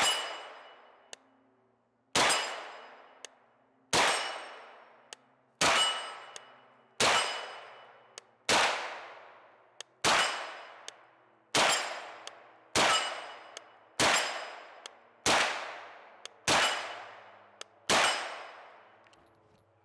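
CZ Scorpion 3 Plus 9mm carbine fired semi-automatically in slow, deliberate single shots, thirteen in all, spaced about one and a half seconds apart. Each report trails off in a long echo before the next.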